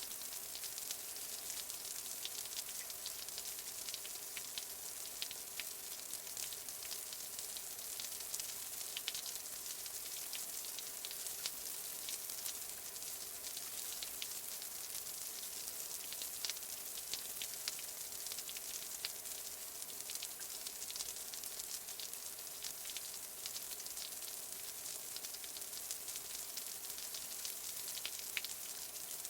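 Light rain, a drizzle, falling steadily: a soft even hiss dotted with many small drop ticks.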